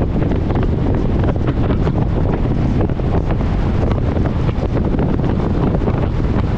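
Loud, steady wind buffeting the microphone, a low rumble with constant flutter.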